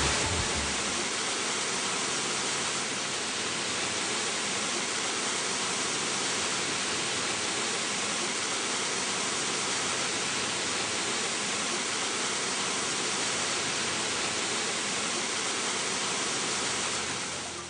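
A steady, even hiss of noise, like static or rushing, holding unchanged throughout. The tail of music fades out in the first second, and the hiss stops abruptly at the very end.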